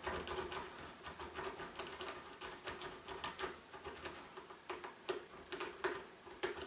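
Steel lock pick being raked in and out of a Maxus padlock's keyway under light tension: a quick, irregular run of small metallic clicks and scrapes as it rattles over the pin stacks. The lock does not open with this pick.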